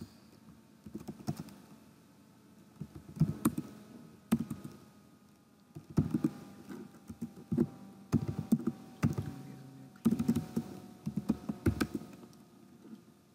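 Computer keyboard being typed on: quick runs of keystroke clicks in irregular bursts with short pauses between them.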